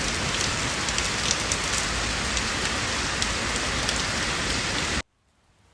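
Steady rain-like hiss with scattered crackling ticks, cutting off abruptly about five seconds in.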